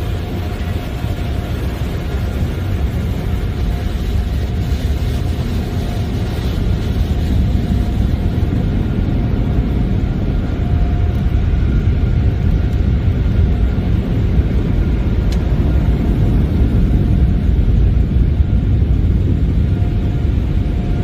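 Tunnel car wash dryer blowers heard from inside the car: a steady low roar with a faint high whine, growing louder as the car moves through the drying stage.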